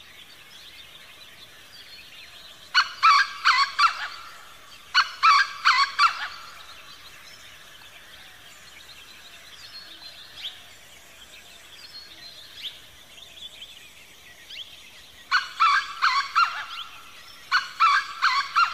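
Bird calls: four bursts of quick repeated notes, coming in two pairs, with faint chirps between them.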